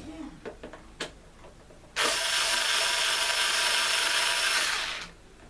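Black & Decker power screwdriver running for about three seconds, backing out a screw from a box fan's grill, preceded by a few small clicks. It starts suddenly and winds down near the end.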